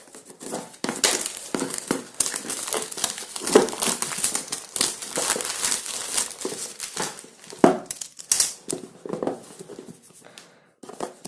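Clear plastic shrink-wrap being cut and peeled off a smartphone box, crinkling and crackling in the hands for several seconds before dying away near the end.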